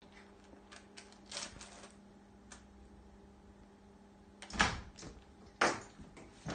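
Steady low hum, with an Oreo cookie package crinkling faintly and a few small clicks. Then a door opens, with two louder knocks about four and a half and five and a half seconds in.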